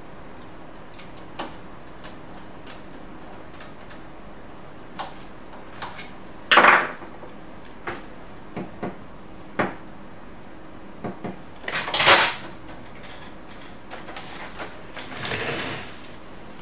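Scattered clicks and knocks of plastic and metal printer parts being handled during reassembly, with two louder noisy sounds, each about half a second long, about six and a half and twelve seconds in.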